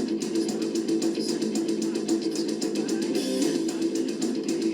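Trailer music: a fast, driving guitar riff with drums.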